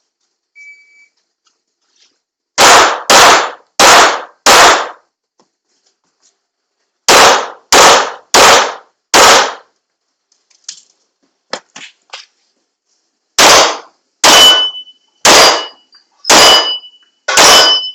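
A faint short electronic beep from a shot timer, then pistol shots fired in quick strings: four shots, a pause, four more, a few faint clicks, then five more. Steady ringing tones follow the last shots, typical of steel targets being hit.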